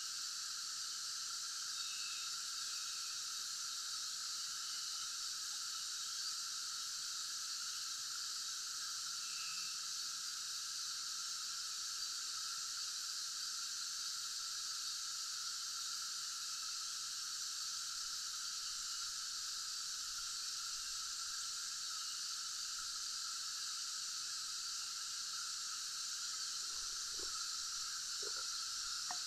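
Steady chorus of tropical insects, a continuous high-pitched buzzing drone with no breaks, with a few faint short chirps over it.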